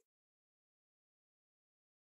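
Silence.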